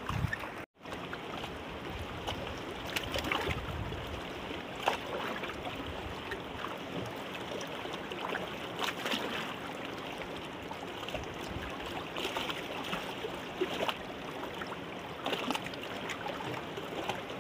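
Steady rushing of river water, with a few faint knocks and rustles scattered through it. The sound drops out for an instant just under a second in.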